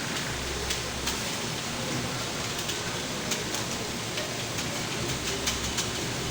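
Computer keyboard keys clicking in a quick, irregular stream of typing over a steady hiss.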